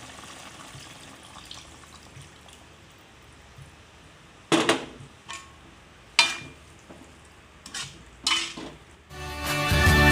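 Cassava-leaf coconut-milk curry in a wok, sizzling faintly as coconut milk is poured in, with several sharp clinks of a metal spatula against the wok in the second half. Music starts about a second before the end.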